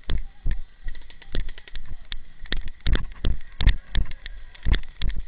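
Footsteps and jostling gear from a player walking with the camera through the woods: an uneven run of knocks and thumps, several a second, the heavier ones landing with a dull low thud.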